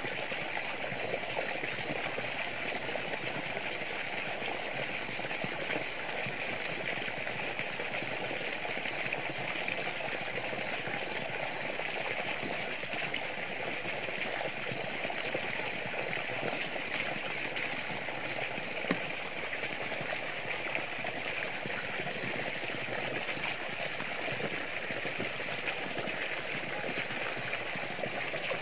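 Water pouring steadily from a garden hose into a plastic bucket, splashing and running over onto wet ground: an even, unbroken rush of water.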